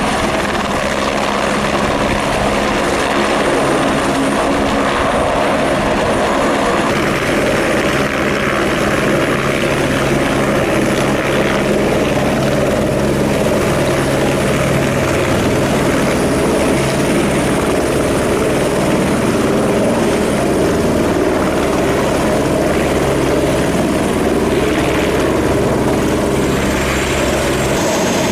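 Light helicopter landing: its rotor beats steadily under a high turbine whine. About two seconds before the end the whine drops in pitch as the aircraft settles on the pad.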